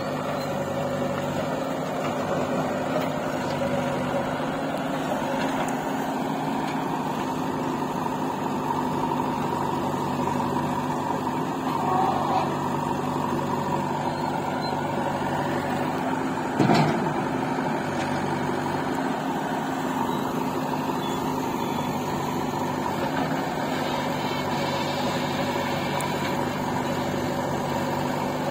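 Diesel engine of a JCB 3DX backhoe loader running steadily at an even pitch while it loads soil into a tractor trolley. There is a short louder patch a little before halfway and a single sharp clunk a little past halfway.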